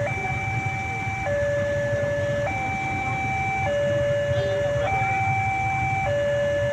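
Railway level-crossing warning siren, the crossing's new type, sounding a two-tone hi-lo signal: a higher and a lower steady tone take turns, each held about a second and a quarter. It is the crossing's alarm that a train is approaching.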